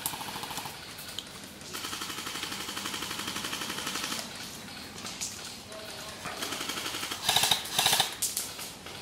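Airsoft electric rifles firing full-auto, a fast mechanical rattle: one long burst from about two seconds in to about four seconds, then shorter bursts, the loudest near the end.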